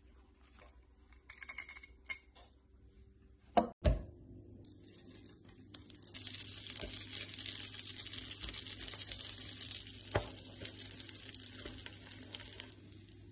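Two sharp knocks, the loudest sounds, come about three and a half seconds in. Then steak begins sizzling as it sears on a hot cooking surface: a steady hiss that grows louder from about six seconds in and eases off near the end.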